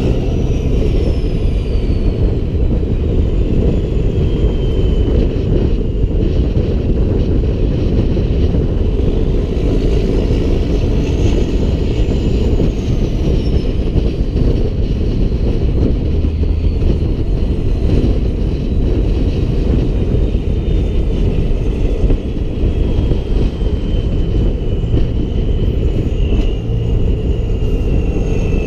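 Peterbilt 388 semi-truck running down the road, a steady heavy rumble with a thin high whine above it that rises and falls slowly.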